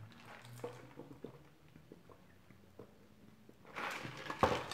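Drinking soda through a straw from a paper fountain cup: faint, scattered small mouth and swallowing clicks. Near the end comes a louder rustle and a sharp knock as the cup is moved and set down.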